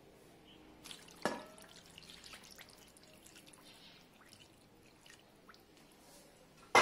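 Water poured from a steel vessel into a glass bowl of raw chicken pieces, a faint pouring and dripping. There is a clink with brief ringing about a second in, and a sharp knock just before the end.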